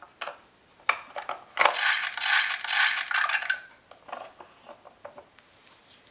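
Fisher-Price Little People sanitation truck toy: its plastic side handle clicks as it is worked. About a second and a half in, the toy's battery-powered speaker plays an electronic sound effect for about two seconds. More faint clicks follow.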